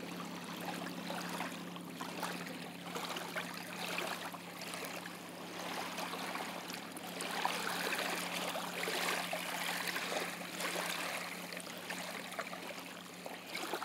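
Shallow tidal water lapping and trickling over sand at the water's edge as the tide comes in, louder for a few seconds in the middle.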